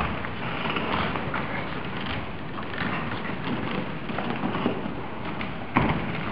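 Shuffling footsteps and rustling of people moving and kneeling, with scattered small knocks and one sharper knock near the end.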